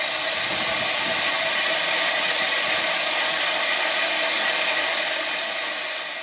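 Steam locomotive No. 564, a 1912 Great Eastern engine, hissing steam steadily while standing at the platform, easing slightly near the end.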